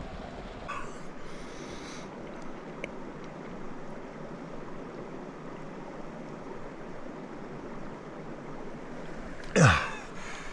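Creek water running steadily in the background. Near the end comes a loud, short throat-clearing sound that falls in pitch, from a person drinking creek water through a LifeStraw filter.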